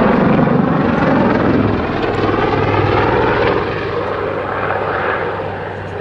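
Westland Lynx helicopter's rotor and twin turboshaft engines as it comes out of a backflip display manoeuvre, loudest at first and slowly fading as it draws away.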